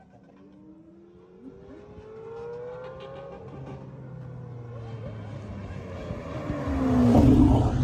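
Lamborghini supercar engine accelerating toward the listener, its note rising in pitch over the first few seconds, then growing steadily louder until the car passes close near the end.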